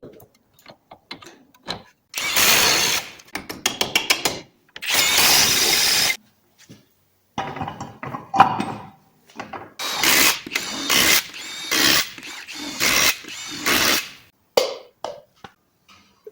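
A power tool, used on the front suspension parts, runs in repeated short bursts. A run of quick clicks comes about four seconds in, and the bursts grow shorter and come closer together in the second half.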